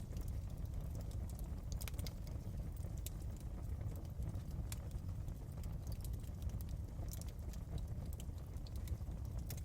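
Wood fire burning in a fireplace, crackling with scattered sharp pops and snaps over a steady low rumble.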